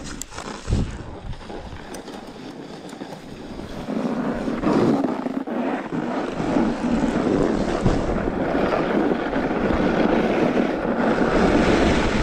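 Snowboard sliding and scraping over snow, with wind rushing over the GoPro's microphone; a single knock near the start, and the noise grows much louder about four seconds in.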